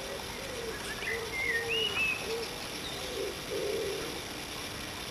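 Birdsong: a songbird's short whistled notes in the first couple of seconds, over a dove's low, repeated cooing.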